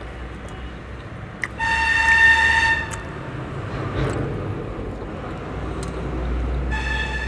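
A horn sounding twice with one steady pitched tone: a blast of about a second shortly after the start, and a longer one starting near the end. A low rumble runs underneath and grows toward the end.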